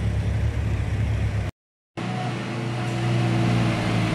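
Diesel engine of a Kubota mini excavator running as it tracks up a truck's loading ramp; the sound cuts out for half a second, then a Wacker Neuson dumper's engine runs with a steady hum.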